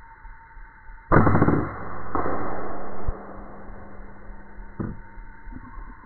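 Silenced PCP air rifle (Ghost Warrior 500cc with a JFRO suppressor) firing a single shot about a second in: a sudden sharp report. A rush of noise follows for about a second, and there is a short click near the end.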